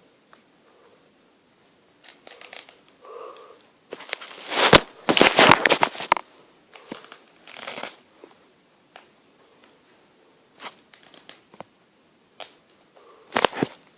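Crinkling, rustling and clicking handling noises, loudest in a dense burst about four to six seconds in, with shorter ones later and a sharp pair near the end.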